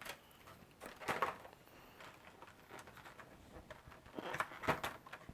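Cardboard and plastic packaging being handled: a few short rustles and light clicks, the busiest near the end.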